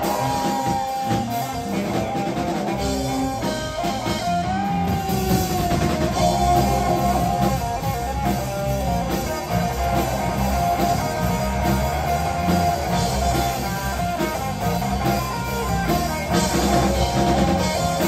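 Live rock band playing an instrumental passage: electric guitars carrying a sustained melodic line over bass guitar and a drum kit.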